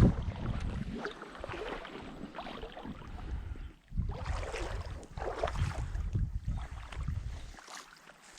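Water sloshing and splashing, with wind rumbling on the microphone; the loudest splash comes right at the start, and there is a brief lull just before the midpoint.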